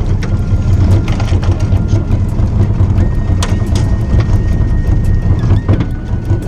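Outboard motor of a small fishing boat running steadily, with a few knocks and clatters against the boat. Faint held tones that step up and down in pitch sound over it.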